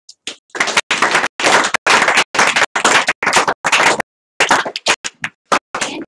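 Audience applauding: dense clapping for about three and a half seconds, thinning to scattered single claps near the end.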